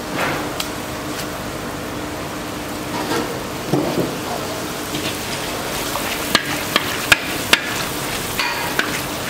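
Hot oil sizzling steadily as round pieces of dough deep-fry in an iron kadai, stirred with a perforated metal slotted ladle. In the second half come several sharp clicks of the ladle knocking against the pan.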